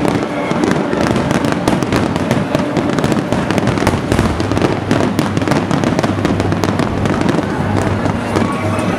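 Aerial firework shells bursting in a rapid, continuous barrage, many sharp reports a second blending into dense crackling.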